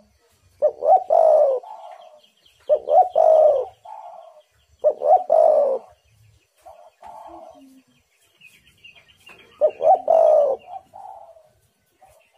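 Spotted dove (tekukur) cooing: four loud coo phrases about two to four seconds apart, each with a falling note, and softer coos between them. A faint high chirping runs behind.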